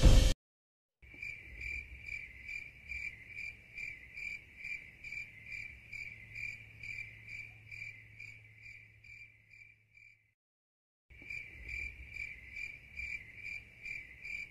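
Cricket chirping at an even pace, about two high chirps a second. It fades out near the ten-second mark and starts again a second later.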